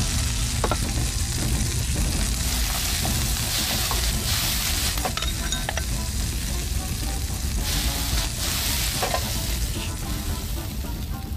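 Food sizzling as it is stir-fried in a frying pan over a high flame, a steady hiss with a few short metallic clinks.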